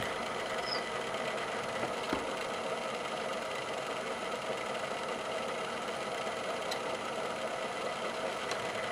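Milling machine spindle running steadily with a countersink, cutting the centre holes of aluminium parts in turn, with a couple of faint clicks.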